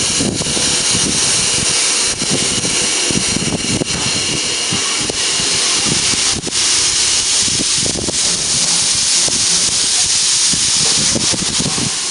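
Steam locomotive standing at the platform and venting steam with a loud, steady hiss, over a low uneven rumble.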